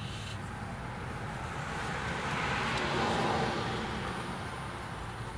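A vehicle passing on a nearby road: a steady hiss of traffic noise that swells to a peak about three seconds in and then fades away.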